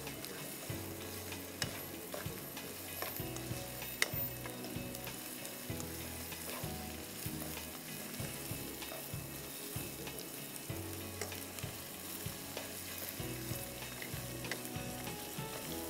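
Cubed chicken breast and chopped onion sizzling in butter and oil in a wok while a perforated metal skimmer stirs them, with a few light clicks of the spoon against the pan. The chicken is being cooked from pink to white.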